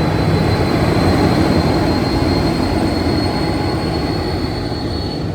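Diesel locomotive of a departing passenger train, a Siemens SC-44 Charger, passing close by with its engine running. The sound is a loud steady rumble with a low hum, plus a thin high whine or wheel squeal held throughout.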